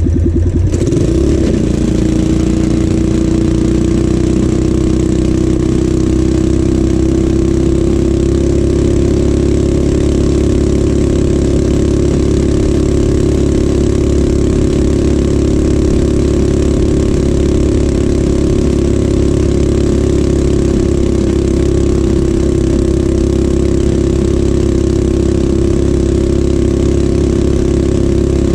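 Mini bike's small single-cylinder engine running steadily under way; its pitch shifts about a second in, then holds even.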